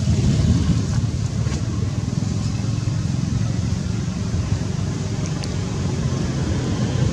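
Steady low rumbling background noise with no monkey calls.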